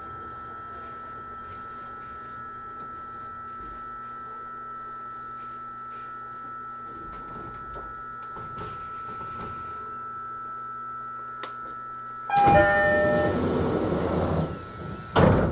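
E129-series train standing with a steady hum, then near the end the door-closing chime sounds and the sliding doors run shut, meeting with a sharp thud about three seconds later.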